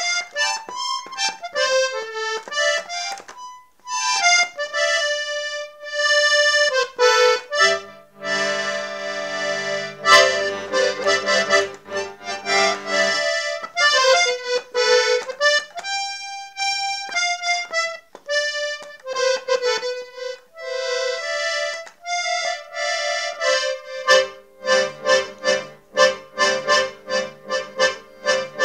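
Accordion played solo: a melody on the treble reeds, with bass and chord accompaniment joining for a stretch in the middle and again over the last few seconds.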